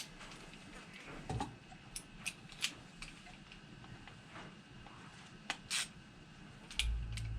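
Faint, scattered light clicks and taps of small stainless steel nuts, bolts and tools being handled and threaded by hand. A low handling rumble starts near the end.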